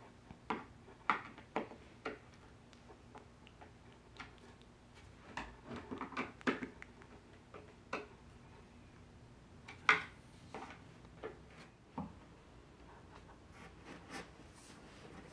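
Scattered clicks, knocks and short rubs of hand assembly work: a hand screwdriver turning screws into the metal fittings of a wooden furniture case, with wood parts bumping, and one sharper knock about ten seconds in.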